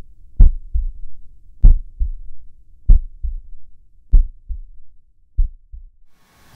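Heartbeat sound effect: paired low thumps, a strong beat and a softer second one, about every second and a quarter, five times, the last one weaker before it stops.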